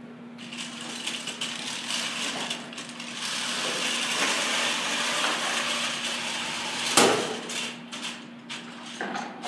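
FRC competition robot driving across carpet, its drivetrain running loudly and its aluminium frame clattering as it shoves a large ball. About seven seconds in there is a single sharp bang, the loudest sound, as it strikes the metal lockers.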